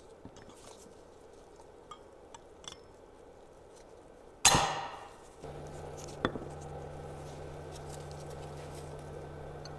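Light metal clicks as brake pads with steel spring clips are worked into a brake caliper, then a loud sharp metallic clack about halfway through that rings briefly as a part snaps or is set into place. A second click follows, over a steady low hum.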